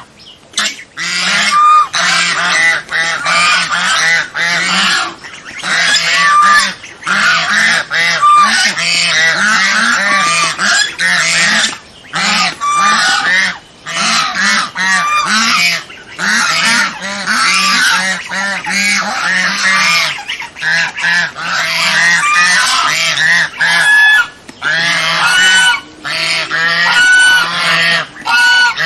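Domestic swan geese (Chinese geese) honking without letup, many short calls following and overlapping one another, with only brief pauses.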